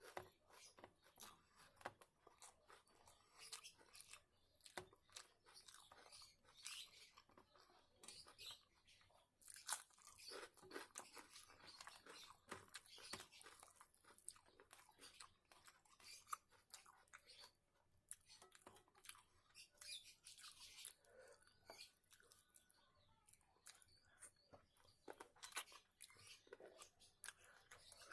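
A person chewing and crunching food, with irregular quiet mouth clicks and crunches.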